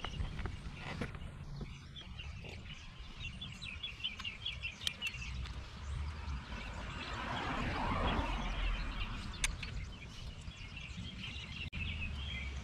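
Small birds chirping over a low outdoor rumble, with a broad rushing swell that rises and fades around eight seconds in. A couple of faint metallic clicks come from a bolt being worked with a hand wrench.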